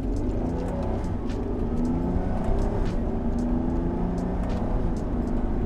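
Audi A3's 3.2-litre VR6 engine heard from inside the cabin, pulling hard under acceleration. Its note climbs in pitch and drops back at each quick upshift of the DSG automatic gearbox.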